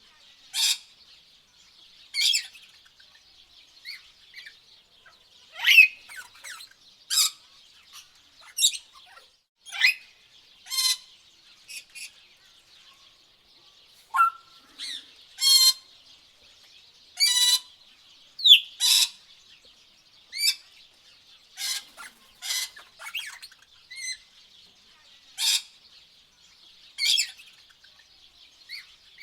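Tropical birds calling: short sharp chirps and calls, one every second or two, over a faint steady high-pitched background chorus.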